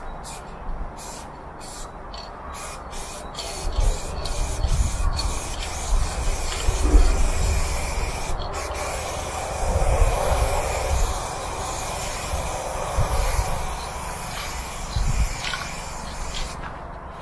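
Aerosol spray paint can hissing: a few short bursts, then long continuous passes with one brief break midway. Under it, low rumbling swells that are loudest around the middle.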